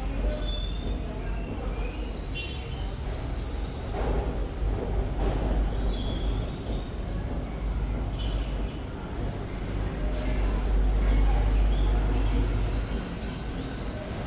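Thrush nightingale singing: two long trilled phrases, each a couple of seconds, with short scattered notes between them, over a steady low rumble.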